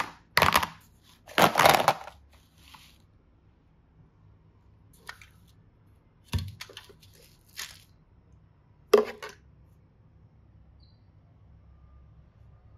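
Hard plastic toy boxes clacking and clicking as they are handled: a cluster of knocks in the first two seconds, then scattered single clicks, the last about nine seconds in.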